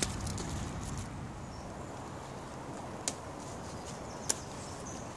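Knife cutting burdock stems: two sharp snaps of the stems, about three and four seconds in, over a light rustle of leaves and undergrowth.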